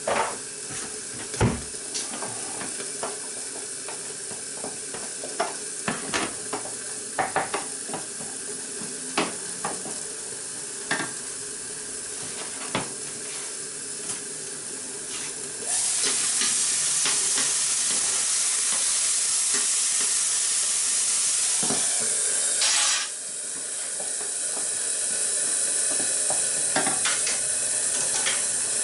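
A utensil stirring and tapping in a saucepan of scrambled eggs, with scattered clicks and scrapes. About halfway a loud, steady cooking hiss starts suddenly, stops abruptly about seven seconds later, and a softer hiss carries on.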